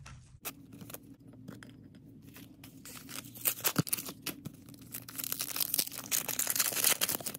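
A foil trading-card booster pack wrapper being torn open and crinkled by hand. Scattered crackles at first, then a dense, louder crackling through the second half as the foil rips.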